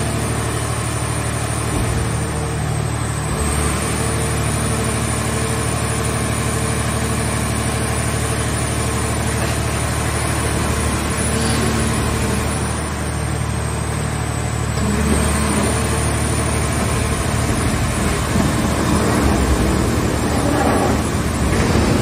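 Hydraulic car baler running: its pump and motor hum steadily with a high whine that dips and recovers twice as the press lids fold down over the scrap car bodies. The sound grows louder and rougher in the last several seconds as the load is pressed.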